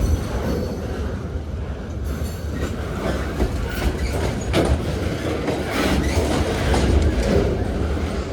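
Freight cars of a CSX pipe train rolling past close by: a steady low rumble with wheels clicking over rail joints and a faint wheel squeal now and then.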